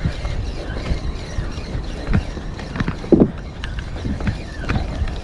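Spinning or casting reel being cranked against a hooked shark, the reel's gears and line guide clicking and creaking irregularly, with one brief louder creak about three seconds in.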